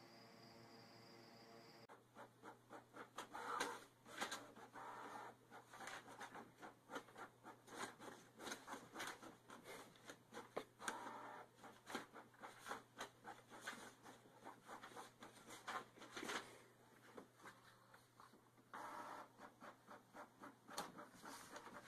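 Canon inkjet printer printing: a quiet, busy run of clicks and swishing strokes from the print-head carriage and paper feed over a low steady hum, starting about two seconds in. Before that, a faint steady pitched tone.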